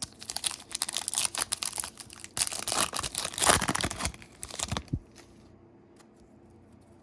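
Foil trading-card pack wrapper being torn open and crinkled, with cards rustling, for about five seconds, loudest in the middle, then quiet.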